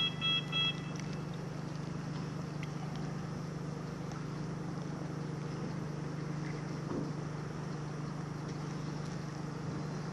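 Small quadcopter drone hovering with a steady hum. A run of rapid electronic beeps, about three a second, stops about a second in.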